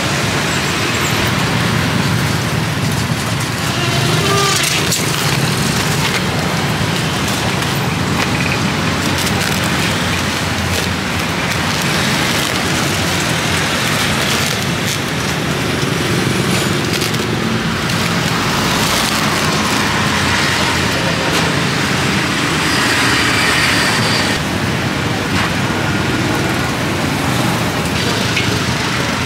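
Steady street traffic noise, a constant din of passing vehicles.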